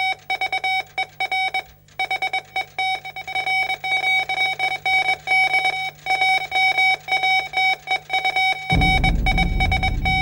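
Morse code radio signal: a single beeping tone keyed on and off in quick short and long strokes, over a low hum. Near the end a low rumbling noise joins it.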